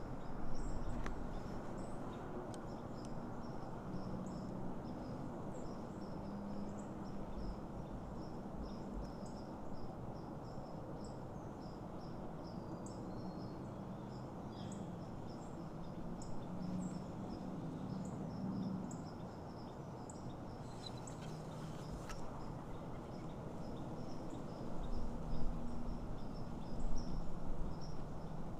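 Strong wind rushing through the woods and buffeting the microphone, with a thin, steady train of high chirps repeating several times a second, like an insect or small bird.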